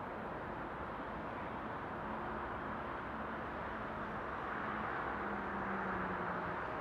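Distant Rhaetian Railway electric freight train of log wagons rolling along the far track: a steady rushing with faint humming tones, swelling slightly near the end.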